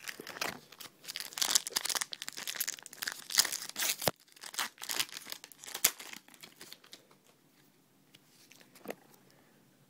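Foil trading-card pack from a 2010 Panini Rookies & Stars football box being torn open and its wrapper crinkled, with two sharp clicks about four and six seconds in. The crinkling dies down after about six and a half seconds.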